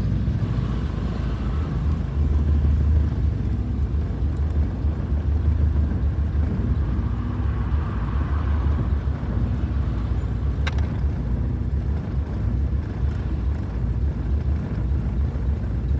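1992 VW Voyage 1.8's engine running steadily at a low rumble, swelling and easing slightly. There is a single sharp click about ten seconds in.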